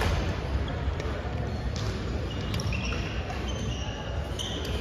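Badminton hall sounds: scattered sharp racket hits on shuttlecocks from the courts and short squeaks of court shoes on the wooden floor, over background chatter.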